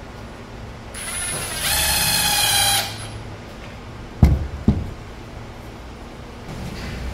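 Ridgid 18V cordless impact driver running a screw into the corner piece of a game table for about two seconds, its motor whine getting louder partway through. A little later come two sharp thumps, the loudest sounds.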